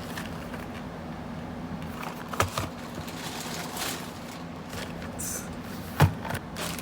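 Cardboard packages being handled: two short thumps, one about two and a half seconds in and a louder one near six seconds, with light scraping between them, over a steady low hum.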